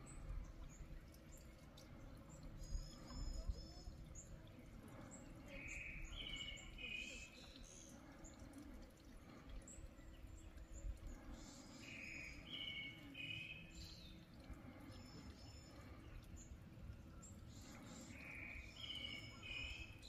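Faint songbird singing outdoors: a short phrase of paired notes repeated about every six to seven seconds, with a second bird's higher chirps in between, over a low rumble of wind.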